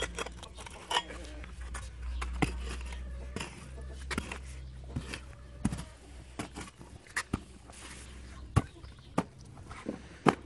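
A hoe blade chopping into hard-packed dirt, about a dozen sharp strikes at an uneven pace of roughly one a second, with loosened clods knocking about, over a low steady rumble.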